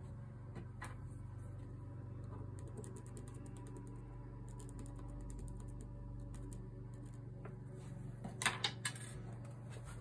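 Felt-tip marker scratching on fabric in quick fine strokes along a ruler, over a steady low hum, then a few knocks near the end as the acrylic quilting ruler is moved.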